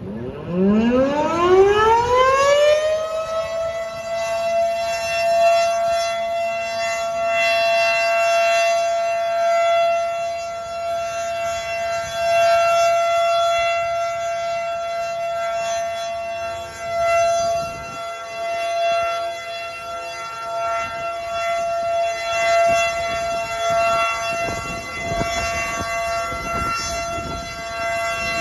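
Federal Signal Model 5 outdoor warning siren sounding its weekly test. It winds up from a low pitch to a high one over about three seconds, then holds one steady tone, its loudness swelling and dipping.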